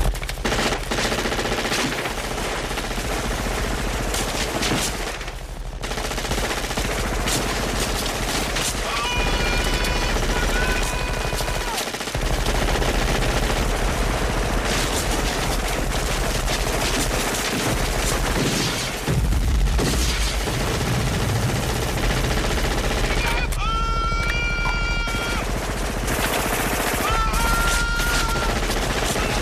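Continuous automatic gunfire from several guns firing at once, a dense, unbroken fusillade.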